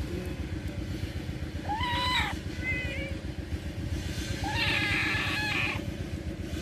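Kittens mewing: a meow about two seconds in, a shorter one right after it, and a longer meow around five seconds. A steady low rumble runs underneath.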